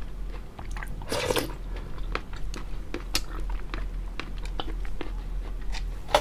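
Close-up chewing of crunchy crystal jelly pearls with water chestnut pieces inside: a run of crisp, irregular crunches and clicks, with a louder crunch about a second in.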